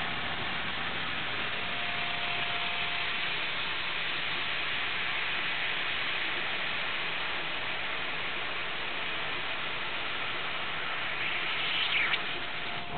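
CNC laser cutter cutting 3/8-inch stainless steel plate: a steady hiss. A faint steady tone sounds in the first few seconds, and the hiss briefly rises near the end.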